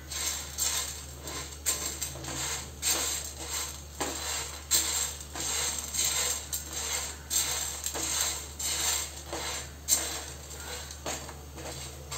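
A silicone spatula stirring whole spices around a dry nonstick pan as they roast: black peppercorns, cloves, cardamom pods, cinnamon bark and dried ginger rattle and skitter against the pan in repeated scraping strokes. A steady low hum runs underneath.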